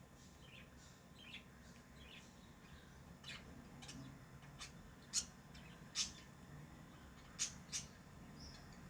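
Pet lovebirds chirping: short, sharp, high-pitched calls, soft at first, then four loud ones in the second half.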